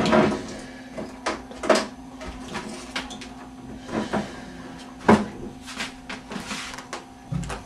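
A series of short, irregular knocks and rustles, a dozen or so in a few seconds, over a steady low hum.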